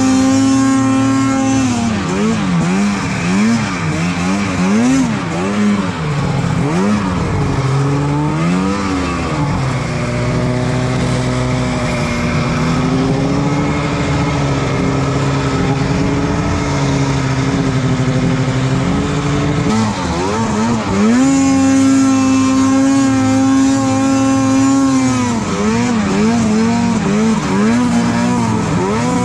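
2013 Arctic Cat M800 snowmobile's two-stroke 800 cc twin engine under throttle: quick revs up and down for the first several seconds, a steadier, slowly climbing pull through the middle, a high held rev a little after twenty seconds, then more quick blips of throttle near the end.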